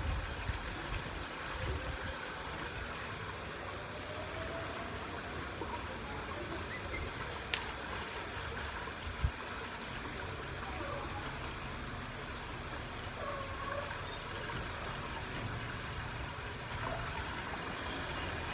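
Steady background noise with no clear source, with a sharp click about seven and a half seconds in and a short thump about two seconds later.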